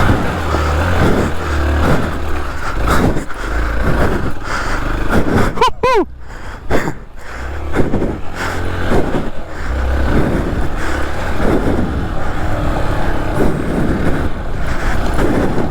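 Motorcycle running on the move, its engine mixed with wind rumble on the microphone. About six seconds in there is a brief falling tone.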